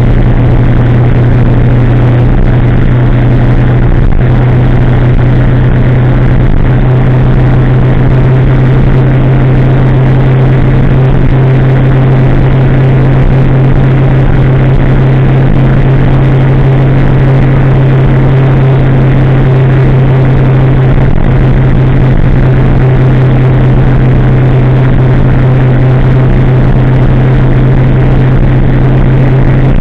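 Kawasaki ZX-10R's inline-four engine through a de-catted aftermarket exhaust, loud and holding a steady pitch as the bike cruises at constant speed.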